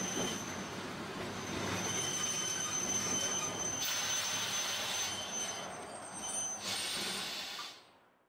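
Tosaden 600-series tram running on its rails, its wheels giving a steady high squeal from about two seconds in until near seven seconds as it rounds a gentle curve, over the rumble of the moving car. The sound fades away near the end.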